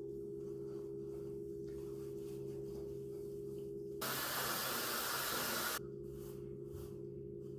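A steady low hum of a few fixed tones. About four seconds in it is covered by nearly two seconds of louder hiss, then the hum resumes.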